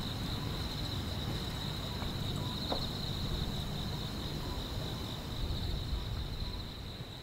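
Crickets trilling steadily in one high, even, finely pulsing chirr, over a low rumble.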